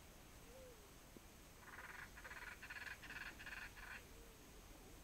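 A frog croaking in a rapid pulsed run of about four or five pulses a second. It starts a little under two seconds in and lasts about two seconds, over a near-silent background.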